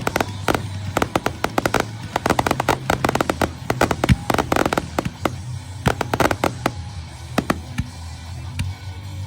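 Aerial fireworks shells bursting in rapid succession: dense volleys of sharp bangs and crackle that thin out after about seven seconds, over rock music.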